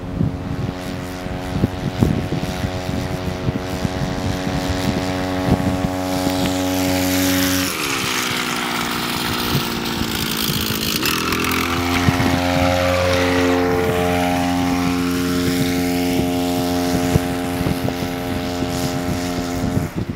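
Small 52cc engine of a motorized bicycle kit, about 2 horsepower, running under way. Its pitch drops sharply about eight seconds in, stays low for about three seconds, then climbs back and holds steady.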